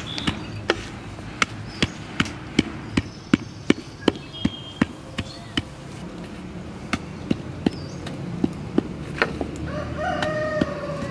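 A round stone held in the hand pounding walnuts in a wooden bowl, a steady run of sharp knocks about three a second as the nuts are crushed. A rooster crows near the end, with faint bird chirps.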